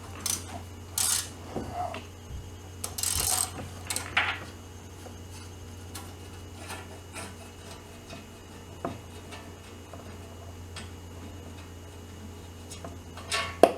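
Hand tools working on a go-kart's engine bolts: a wrench scraping and clicking against metal, busiest in the first few seconds, then a sharp metallic clink near the end. A steady low hum runs underneath.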